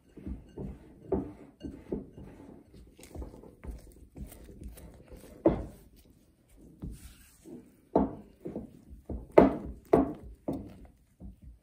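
A spatula working cocoa cookie dough in a glass bowl: soft, irregular thumps and scrapes as flour and cocoa are folded into the creamed butter. The strokes come a few times a second, with a handful of louder knocks against the bowl in the second half.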